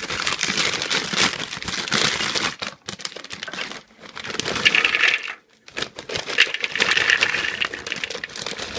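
A chip bag being crinkled and rustled in irregular, crackly bursts with short pauses, as chips are taken from it and eaten.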